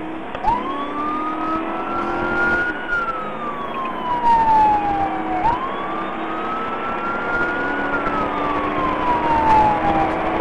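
Police car siren on a slow wail, starting about half a second in and sweeping up and then down twice, each rise and fall taking about five seconds. Beneath it run the patrol car's engine and road noise as it drives.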